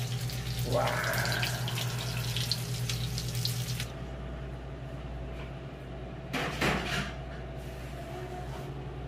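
Water boiling and steam hissing in a stainless steel steamer of oysters, a steady hiss over a low hum that cuts off suddenly about four seconds in. After that it is much quieter, with one brief noise about six and a half seconds in.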